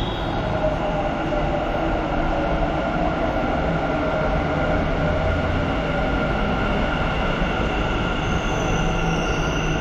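Bangalore Namma Metro green-line train running: a steady rumble under a steady whine in several pitches, with a higher whine joining near the end.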